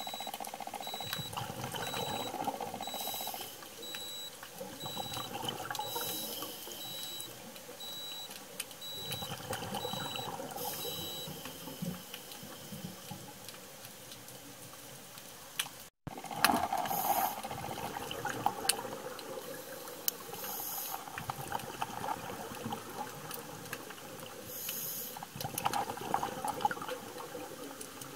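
A scuba diver breathing through a regulator: a hiss on each inhalation, then a burst of exhaust bubbles every three to four seconds, heard through an underwater camera housing. During the first eleven seconds a high electronic beep repeats about once a second.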